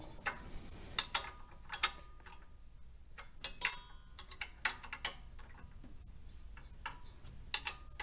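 Ratchet wrench tightening the alternator's adjusting bolt: short spells of ratcheting and sharp metallic clinks of the tool against the bracket, coming at irregular intervals, a few of them ringing briefly.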